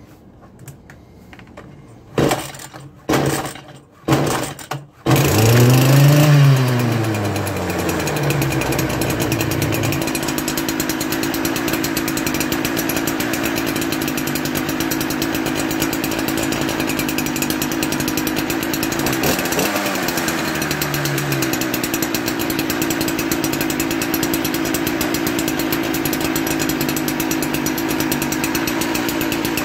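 Stihl string-trimmer two-stroke engine firing in a few short bursts, then catching about five seconds in. It revs up and falls back, then settles into steady running, with one more brief rev about twenty seconds in.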